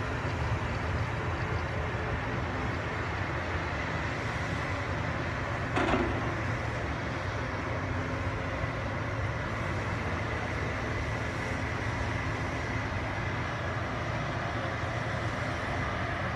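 Diesel engines of crawler bulldozers running steadily under load as they push dirt, with a short knock about six seconds in.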